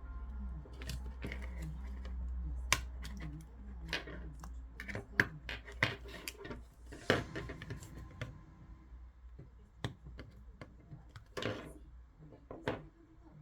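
Irregular clicks and taps of small tools and plastic parts being handled on a workbench during a small speaker's repair, over a low steady hum.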